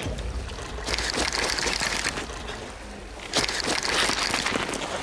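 Sea water washing and splashing against shore rocks, a steady hiss over a low rumble. The hiss thins out about two seconds in and comes back louder a little after three seconds.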